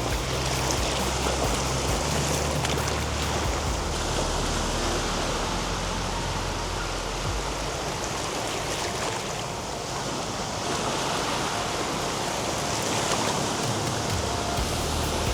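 Sea surf: a steady rush of waves washing onto the beach, swelling and easing every few seconds.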